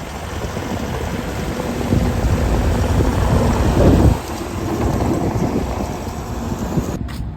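Wind buffeting the microphone on a moving vehicle, a loud steady rumble with road and engine noise under it. It cuts off suddenly near the end.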